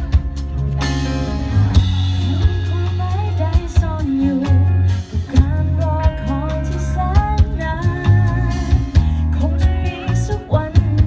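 A singer and a band playing a song: a voice singing a melody over drums and a strong bass line.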